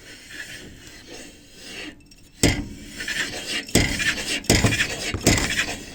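Knocking from the gearbox of a ZAZ Slavuta as a jacked-up front wheel is turned by hand: rubbing and scraping from the turning drivetrain, then several sharp knocks, the first about two and a half seconds in. The whole gearbox shifts and lifts slightly before each knock, which the owner links to the drive shaft.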